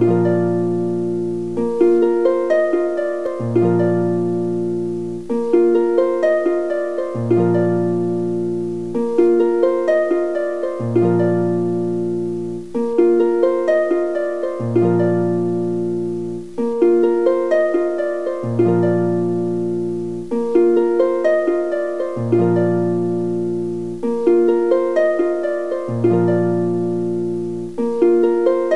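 Background instrumental music: plucked-string notes in a short phrase that repeats about every two seconds over a low bass line.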